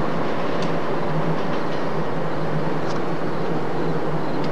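Steady rush and rumble of a train running on the tracks, with a few faint clicks.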